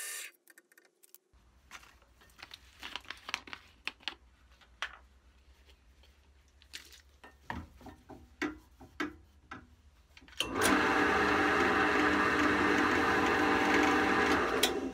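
Bench drill press motor cuts off just after the start, followed by scattered clicks and rubbing as a cloth is worked on the wooden plane knob chucked in it. About two-thirds in, the drill press runs again steadily, spinning the knob against the cloth, until just before the end.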